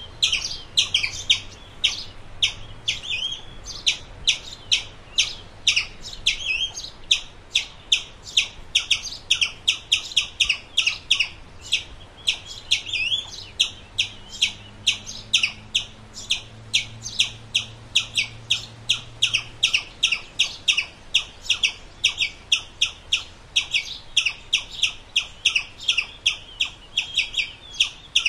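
Squirrel chirping: a long, steady series of short, sharp, high chirps, each sweeping downward, about three a second.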